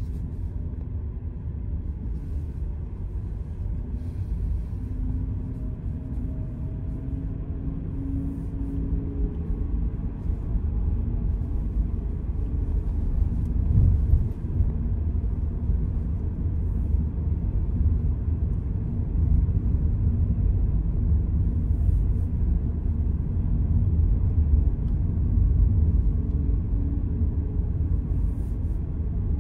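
Car driving on a town street, heard from inside the cabin: a steady low road and engine rumble that grows somewhat louder about a third of the way in, with a brief bump about halfway through.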